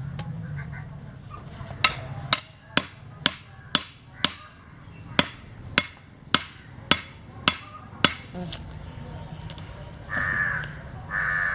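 About a dozen sharp knocks, roughly two a second, as a bamboo stake is worked with blows. Near the end a crow caws twice.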